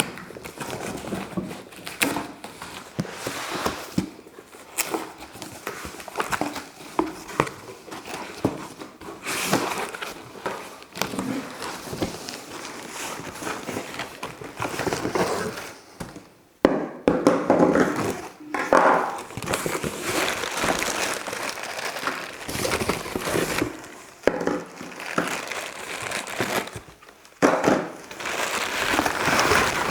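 Vacuum-cleaner packaging being unwrapped and handled: irregular crinkling and rustling, with scattered clicks and knocks.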